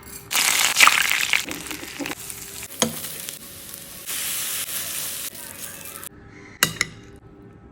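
Food frying and sizzling in a hot pan while being stirred, with two sharp knocks of the utensil against the pan. The sizzling stops suddenly about six seconds in.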